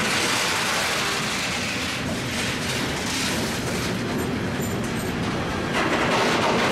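A train rolling past on the track, a steady rushing rumble of wheels and wagons that gets louder near the end.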